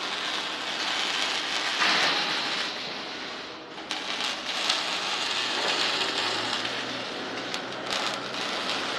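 Welding on steel cattle panels: a steady, crackling hiss like frying, with a few sharp pops and a brief drop about midway.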